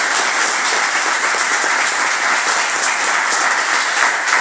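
A small group of people in a dojo applauding steadily.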